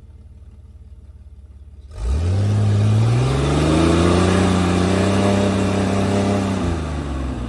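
Rock-crawling 4x4's engine idling low, then about two seconds in the throttle opens and the engine revs up, holding a steady high rev for several seconds under load as the rig pushes up over a rock, easing off near the end.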